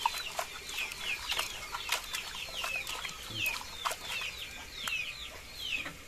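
Chicks peeping, a steady run of short, high chirps that fall in pitch, several a second. Scattered wet clicks and squelches come from hands rubbing salted catfish pieces in a pot.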